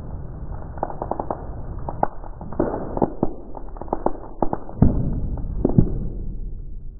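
Paper being crushed in a hydraulic press: a rapid, irregular run of sharp cracks and pops, with two heavier thumps about two-thirds of the way in.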